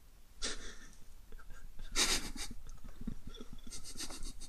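Suppressed, breathy laughter: short puffs of breath, a louder one about two seconds in and a quick run of them near the end.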